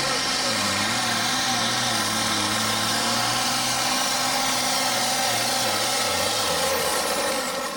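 International Harvester pro farm pulling tractor's turbocharged diesel engine running flat out under load as it drags the weight-transfer sled. Its pitch sags slightly about half a second in and wavers near the end before dropping off.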